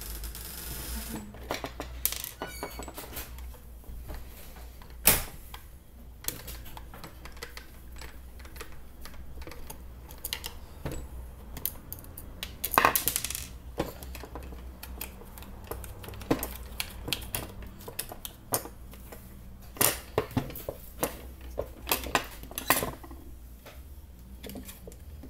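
Scattered clicks and clacks of a screwdriver working on the plastic housing of a Bosch GSB 20-2 drill, undoing the screws of a carbon-brush holder. Two louder knocks come about 5 and 13 seconds in, and a quick run of clicks comes near the end, over a low steady hum.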